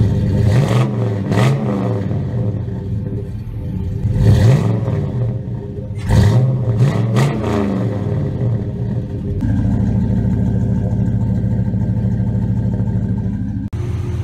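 A 2005 Cadillac Escalade's 6.0-litre V8 revved in a series of quick throttle blips, the pitch rising and falling with each, then settling to a steady idle about nine seconds in.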